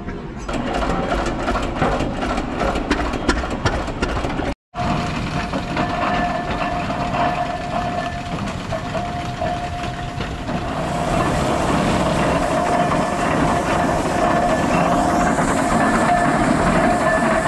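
Historic steam traction engines running close by: first a rapid run of knocks and clanks, then, after a short cut, a steady mechanical din with a high held tone running through it. The din grows louder and hissier in the second half.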